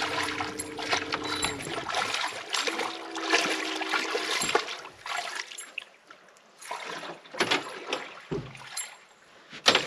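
A hooked pickerel thrashing and splashing at the surface beside the boat as it is reeled in, with a steady low hum on and off in the first few seconds. About halfway through the splashing dies down to a few scattered knocks and drips.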